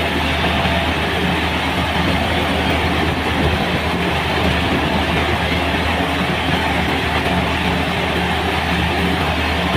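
A heavy engine-driven machine running steadily: a constant low engine hum under a dense, even rushing clatter, with no change in pace.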